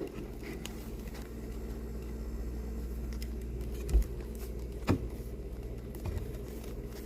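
Steady low hum with two light knocks, about four and five seconds in.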